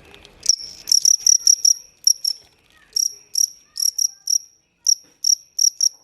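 A cricket chirping close up: short, shrill chirps starting about half a second in, first a quick run of about six, then single chirps two or three a second.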